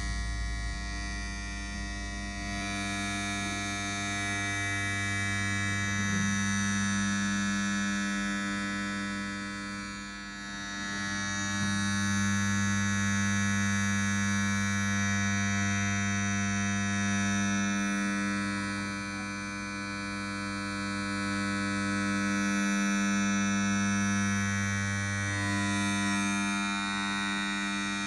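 Electronic buzzing drone of an audio-visual installation's sound track: a steady hum with many overtones, its deepest layer dropping out and returning three times.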